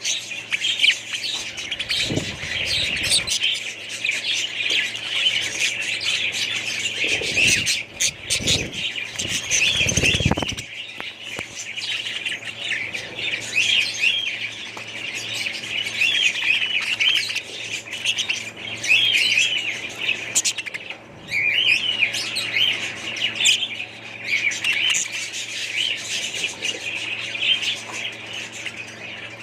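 Many small birds chirping and chattering together without a break, a busy mass of high calls. A few low rumbles come through between about two and ten seconds in.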